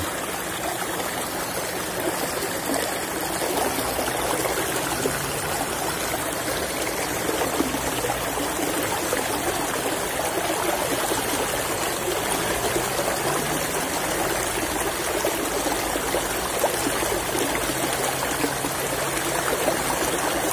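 Water of a small irrigation channel flowing and rippling over its bed, a steady rushing noise.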